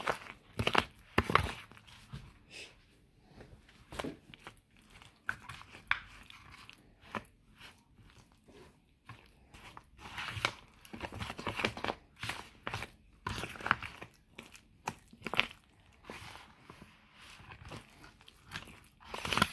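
Spoon stirring thick corn casserole batter in a disposable aluminium foil pan: irregular scrapes and clicks of the spoon against the thin foil.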